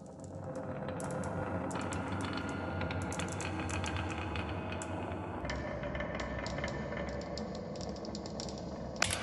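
Many marbles rolling and clattering down a wooden marble run: a dense patter of small clicks over a low rolling rumble, growing louder just before the end.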